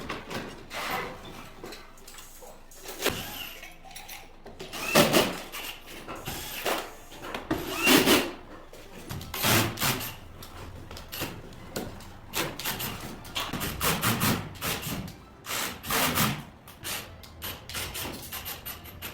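Irregular knocks, scrapes and clatter of hands-on installation work, handling parts and tools, with no steady machine sound.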